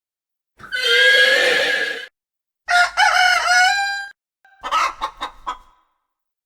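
Chicken sound effect: two drawn-out rooster crows, followed near the end by a few short clucks.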